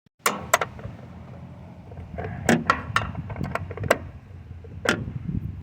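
A string of sharp, separate knocks and clanks from work on a van's front-end body panels, about eight strikes over five seconds, over a low background rumble.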